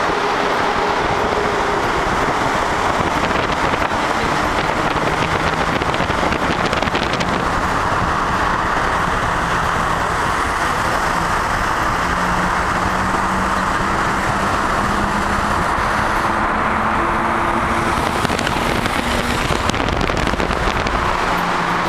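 BMW 325i E36 with its 2.5-litre straight-six driving through a road tunnel alongside the car recording, a loud steady roar of engine, tyre and wind noise echoing off the tunnel walls, the engine note shifting slightly in pitch.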